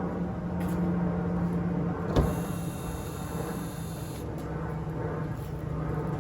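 Toyota Yaris petrol engine idling steadily with a constant low hum, run briefly after the fresh oil fill so the oil circulates through the new filter. A sharp click about two seconds in is followed by a faint high whine for about two seconds.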